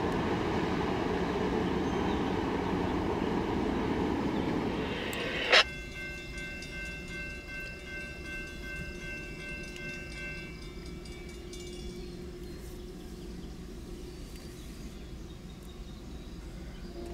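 Freight train cars rolling past with a steady rumble of wheels on rail. About five and a half seconds in, a sharp click cuts it off. A much quieter stretch follows, with faint steady high-pitched tones for about five seconds.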